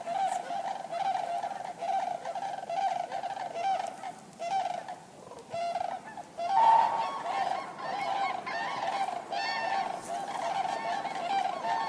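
A flock of common cranes calling: many honking trumpet calls overlap. The calls thin out briefly about four seconds in, then resume louder and denser from about six and a half seconds.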